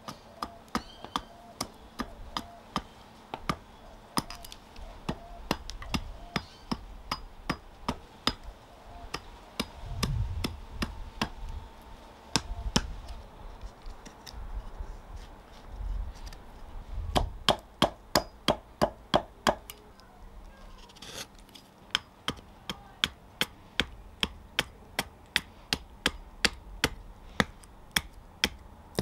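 Hatchet chopping a nectarine-wood fork blank held on a stump chopping block: a steady run of sharp chops, about two a second, quickening to about four a second for a few seconds past the middle before a brief lull.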